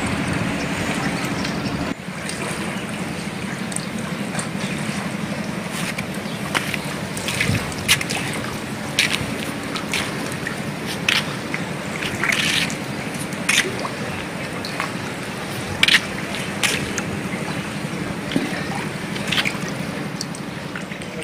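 Swollen floodwater rushing and lapping, with frequent short splashes over a steady low hum.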